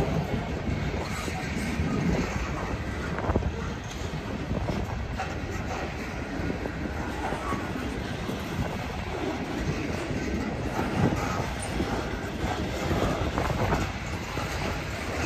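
Freight cars of a long train rolling past, a steady rumble from the wheels with scattered knocks and clacks as they cross the rail joints.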